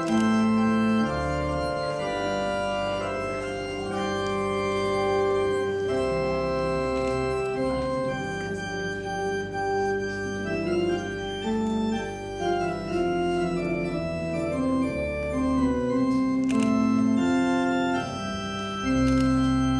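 Church organ playing the wedding recessional: held chords that change every second or so over a slowly moving bass line.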